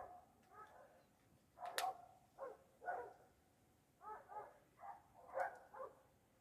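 Kittens mewing in a rapid series of short calls, several rising and falling in pitch, with a sharp click about two seconds in.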